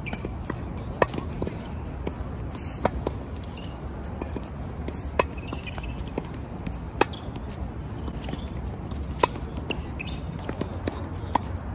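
Tennis balls struck by rackets in a rally, a sharp pop about every two seconds, six in all, with fainter ball bounces on the hard court between the hits.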